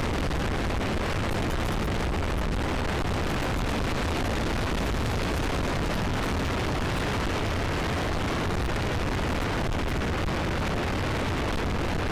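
Steady wind buffeting the microphone of a camera carried on a flying RC model plane: a constant rushing rumble, heaviest in the low range.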